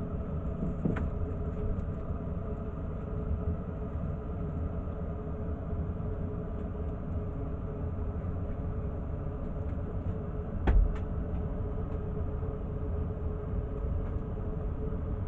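2016 Maytag gas furnace running in heat mode, burners lit and inducer motor going: a steady rumble with a low hum. A faint knock about a second in and a louder thump near eleven seconds.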